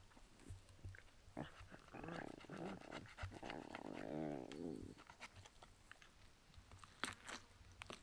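An animal's drawn-out, wavering vocal sound lasting about three seconds, among scattered small clicks, with a sharper pair of clicks near the end.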